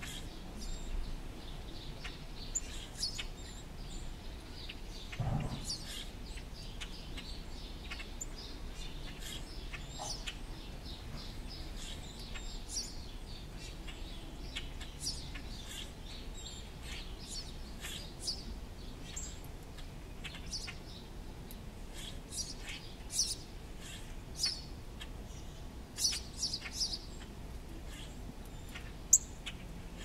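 Backyard songbirds chirping: short, high calls scattered throughout, with several louder ones in the second half. A brief low sound about five seconds in.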